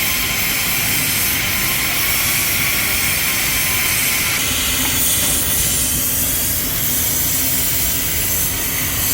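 Steady, loud hiss of compressed air, typical of air-powered workshop equipment such as an air-hydraulic pump. A faint low hum joins about four seconds in.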